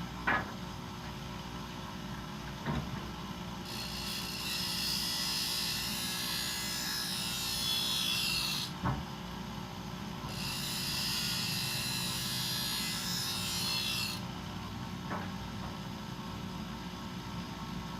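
Bench grinder running with a steady hum while a steel thickness-planer knife is ground against the wheel: two long grinding passes with a bright, hissing scrape, the first about five seconds long and the second about four, separated by a short pause. Faint clicks come a few times as the blade is handled.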